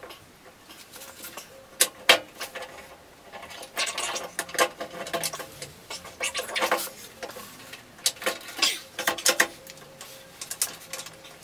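Metal-on-metal clunks, clinks and scraping as the tailstock of an EMCO V10-P lathe is slid onto the bed ways and fitted. The knocks come irregularly, with the sharpest around two seconds in and a busy run of clatter near the end.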